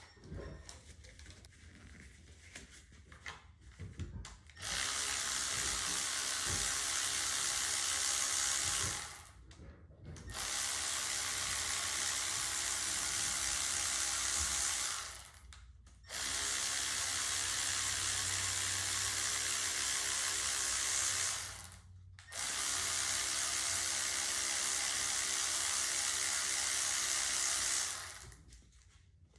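A few light tool clicks, then a power tool runs in four steady runs of about five seconds each with short pauses between, backing out bolts during an engine teardown.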